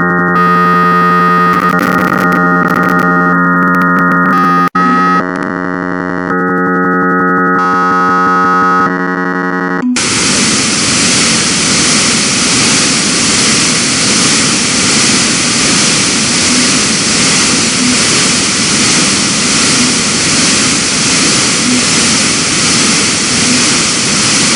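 Harsh computer-generated bytebeat audio from a GDI malware payload. For about ten seconds it plays stacked buzzy synth tones that jump in steps, then it switches abruptly to a loud, steady hiss of noise with a faint pulse about once a second.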